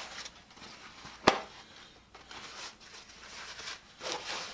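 Small handling noises at a workbench: one sharp click or knock a little over a second in, with faint rustling and scraping around it.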